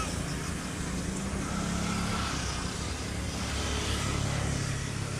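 Diesel locomotive engine running with a steady low drone, over a broad rushing noise.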